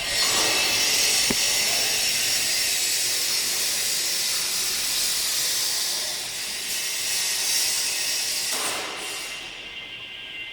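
Heat-treatment furnace with a water quench hissing loudly and steadily as a loaded basket is moved from the hot chamber into the water. The hiss starts suddenly, swells once near the end, then dies down.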